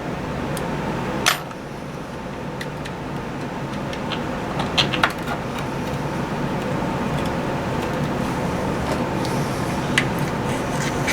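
A few light clicks and clinks of the Lansky sharpening kit's hone and guide being handled as the medium stone is readied, over a steady hiss.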